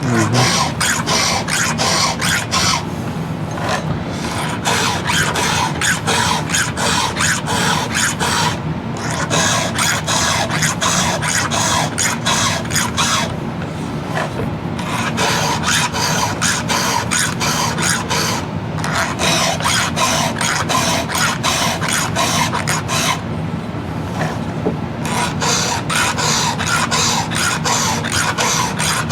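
A hand file on a chainsaw chain's cutters, stroking quickly and evenly to sharpen a dull chain, with short pauses here and there as the file moves on to the next tooth.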